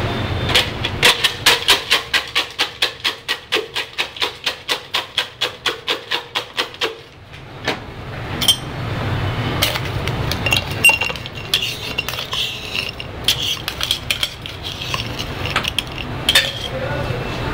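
Ice being crushed in a metal shaker tin: a fast, even run of sharp strikes, about five a second, for some six seconds. After that, crushed ice rattles and clinks as it is tipped from the tin into a glass.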